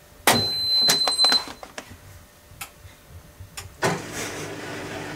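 Washer dryer starting its pre-wash cycle after two buttons are held for five seconds: a long high electronic beep with clicks comes early, then about four seconds in the machine starts running with a steady hum and rush.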